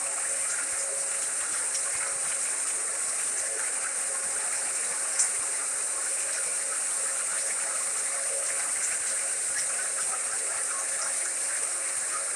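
Steady white noise, a constant rushing hiss like running water, with a faint steady hum underneath and a small click about five seconds in.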